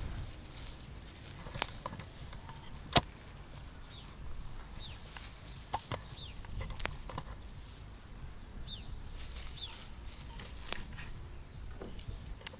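Sorrel leaves being picked by hand, heard as scattered snaps and rustles of stems breaking, with one sharp snap about three seconds in the loudest. Short, high, falling bird chirps come now and then in the background.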